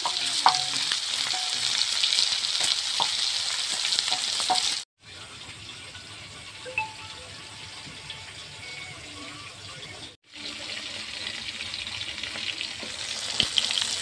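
Pangas fish pieces frying in hot oil in a wok, with a steady sizzle. The sizzle breaks off abruptly twice. Between about five and ten seconds in it drops to a much quieter stretch, then returns.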